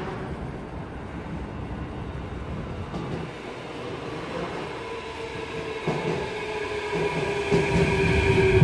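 Athens Metro second-generation train arriving at the platform, growing steadily louder as it draws in. A rumble of wheels on the rails is joined by a whine that falls slightly in pitch as the train slows.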